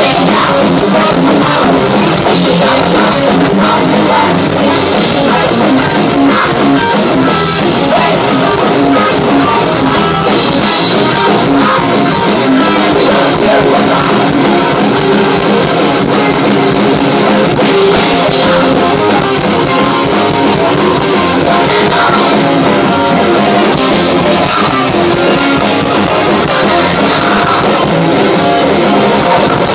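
Thrash metal band playing live and loud: distorted electric guitars over a drum kit, steady at full volume throughout.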